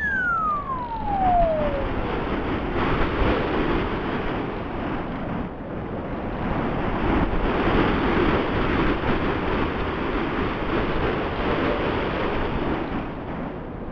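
Steady rush of wind noise from air streaming past a camera mounted on a flying radio-controlled plane. Over the first two seconds a whine from the plane's motor falls steeply in pitch and fades.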